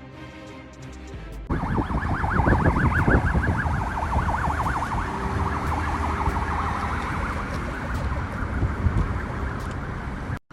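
Brief music, then a siren starts suddenly about a second and a half in, wavering quickly up and down over loud, dense noise until an abrupt cut near the end.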